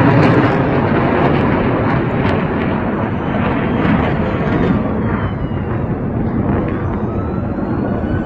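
Jet engine roar from a formation of display jets trailing smoke, loud at first and fading gradually as they pull away. A faint rising whine comes in near the end.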